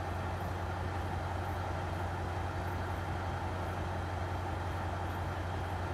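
An engine idling steadily, a constant low hum with no rise or fall.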